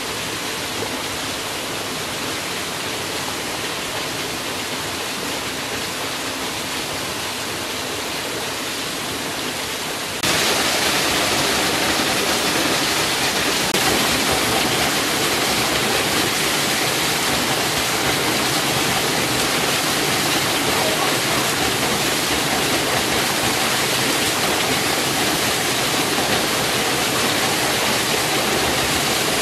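Small waterfall splashing down over boulders, a steady rushing of water that becomes suddenly louder and brighter about a third of the way in.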